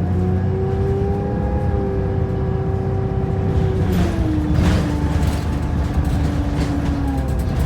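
Optare Versa single-decker bus running, heard from on board: a low drivetrain rumble under a steady whining tone that drops in pitch about four seconds in and fades out near the end, with a short hiss around the middle.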